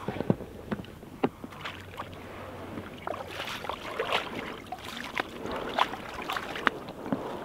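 A paddle dipping into the water beside an inflatable dinghy, making repeated splashes from about three seconds in. A few sharp knocks come in the first second and a half.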